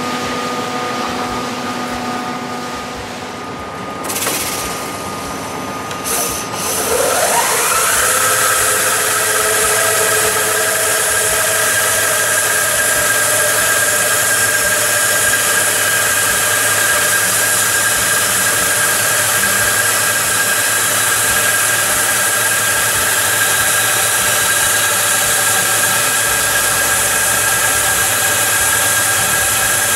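Planetary abrasive-belt polishing machine spinning up with a rising whine about seven seconds in, then running steadily with a high whine and hiss as its belts grind a bent brass faucet spout.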